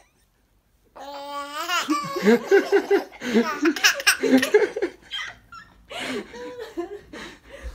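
Baby laughing. About a second in comes one long drawn-out note, followed by a quick run of laughs, then a short pause and more laughter near the end.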